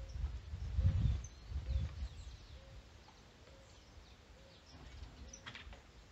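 Birds calling faintly outdoors: a soft short call repeating about once a second, with thin high chirps. Low rumbling noise fills the first two seconds.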